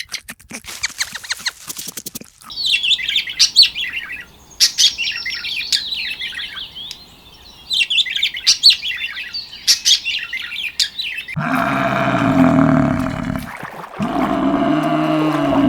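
Rapid clicks for about two seconds, then a flock of small birds chirping busily for about nine seconds. Near the end a large farm animal gives two long, low calls, like a cow mooing.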